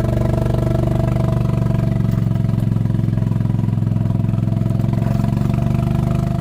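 Engine running at a steady speed, a loud even drone with a fast regular firing pulse.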